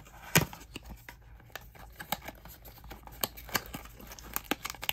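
Hands opening a small paperboard blind box: a sharp snap about a third of a second in as a flap comes free, then light scattered clicks and rustles of the cardboard and the wrapped figure inside.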